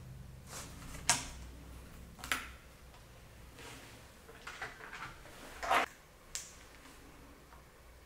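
Sharp clicks and light taps from hands working inside an open laptop and handling small parts, the loudest about a second in, a little after two seconds and near six seconds, with fainter handling noises between.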